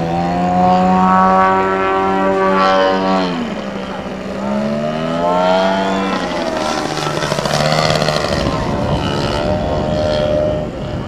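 Radio-controlled aerobatic biplane's engine running in flight, its pitch falling steeply about three seconds in, then rising again and wavering as it changes speed through the manoeuvres.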